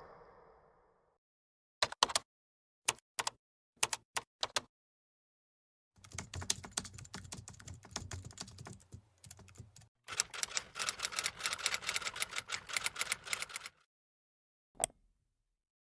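Computer keyboard keys being typed: a few separate keystrokes, then two runs of rapid continuous typing. Near the end comes a single computer mouse click.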